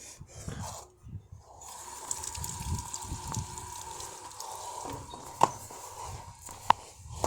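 Water running through a hose into a Sital SEI dishwasher, a steady hiss that starts about a second and a half in, with two sharp clicks near the end.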